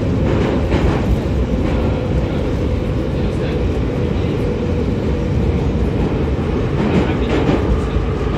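Em-501 metro train running through a tunnel, heard inside the car at its end door: a loud, steady rumble of wheels and running gear on the rails, with a constant whine underneath.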